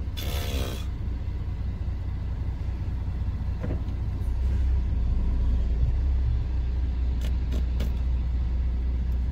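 Lorry's diesel engine running with a steady low rumble, heard from inside the cab, getting a little louder about halfway through. A brief burst of sound right at the start, and a few sharp clicks near the end.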